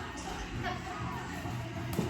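Quiet background music with faint, indistinct voices.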